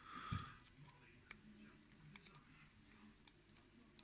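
Near silence with a few faint, scattered small clicks as tiny lock pins are handled and felt between the fingers.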